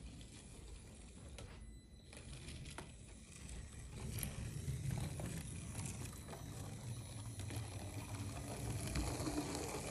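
Faint whir of a tiny 1:64-scale electric RC car's gear motors running on a plastic slot-car track, with a low rumble and light clicks. It briefly drops out about one and a half seconds in and is a little louder from about four seconds on.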